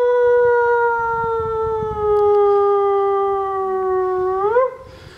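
One long howl, held for about five seconds and sliding slowly down in pitch, then swooping up briefly and stopping near the end.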